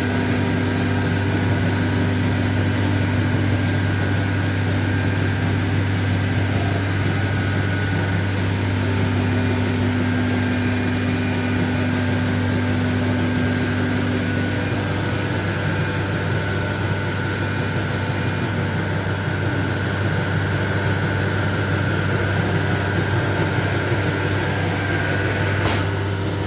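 Holzher Cosmec 250 CNC router running under power: a steady machine hum with several steady tones over it. About two-thirds of the way through, the high hiss changes.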